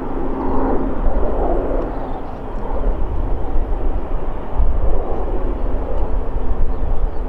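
Jet engines of an Embraer regional jet on final approach: a steady rush of engine noise, with wind rumbling on the microphone.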